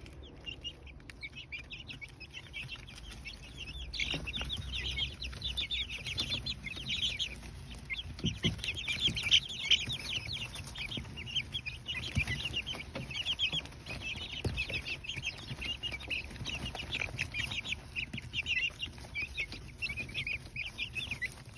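A brood of three-week-old chicks peeping nonstop, many short high chirps overlapping, with a few faint knocks now and then.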